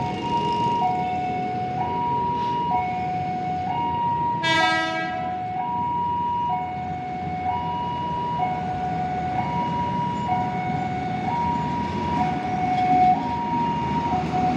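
Railway level-crossing warning alarm sounding, alternating between a higher and a lower tone about once a second. About four and a half seconds in, the approaching train gives one short horn blast, and the train's rumble on the rails grows as it nears the crossing and passes.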